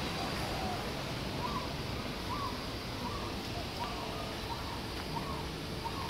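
A bird calling with a short, arched note repeated about every 0.7 seconds, starting about a second and a half in, over steady background noise.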